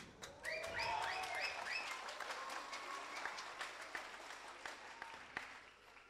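A single thud of a body thrown onto the wooden stage floor, then audience applause that builds quickly, with some cheering in the first two seconds, and slowly dies away near the end.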